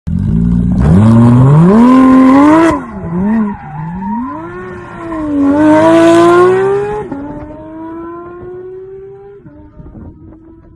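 Porsche engine revving hard, its pitch swinging up and down, with two loud stretches of tyre squeal as the car drifts. After that the engine settles into a steadier, slowly rising note that fades away.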